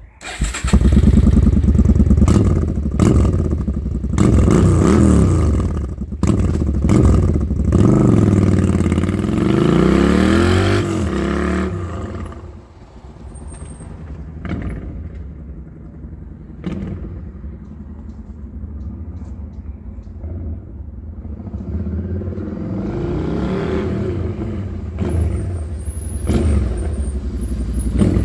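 Suzuki Marauder VZ800's V-twin on its modified original exhaust starts up about half a second in and is revved a few times. It then pulls away, rising in pitch through the gears. It fades into the distance and grows louder again near the end as the motorcycle rides back.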